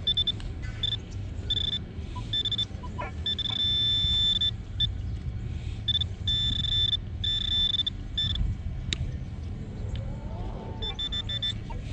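Minelab metal detector giving repeated high-pitched beeps as the coil passes over a shallow target, some short and some held for about a second. This is the steady tone the detector gives for a 50-centavo coin. A low rumble runs underneath.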